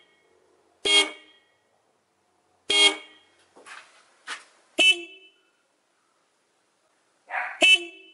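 Short car horn honks: the newly fitted aftermarket dual horns of a 2008 Chevy Aveo 5 sound twice, then the car's original single factory horn beeps. Each honk is brief, with a few fainter short noises between them.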